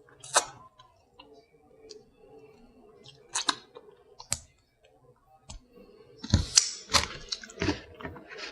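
Close-miked eating: sharp wet mouth clicks and smacks while chewing seafood, scattered at first, then a louder, denser run of clicks and chewing thuds about six to eight seconds in.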